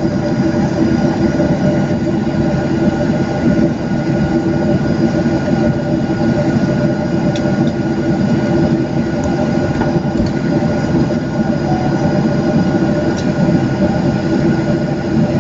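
Cabin noise of a Boeing 737-700 on the move by the wing: its CFM56 turbofan engines hum steadily with a few fixed tones over a constant low rumble.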